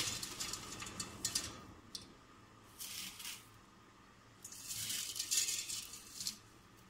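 Dry spaghetti rattling as handfuls of the hard strands are dropped into a stainless steel pot: three bursts of clattering, the longest near the end.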